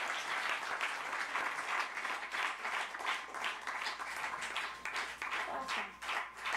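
Audience applauding, the dense clapping thinning out into scattered separate claps toward the end.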